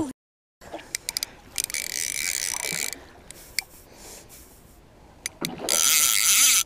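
Click-and-pawl fly reel buzzing in two bursts of about a second each, one about a second and a half in and one near the end, with a few sharp ticks before each: a big rainbow trout is pulling line off a reel that has no drag beyond its clicker.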